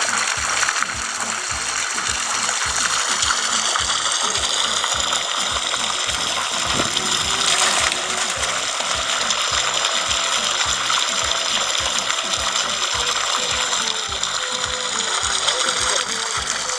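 Background music with a steady beat over the continuous rush of river water. About halfway through there is a louder splash as a netful of live trout is tipped into the river.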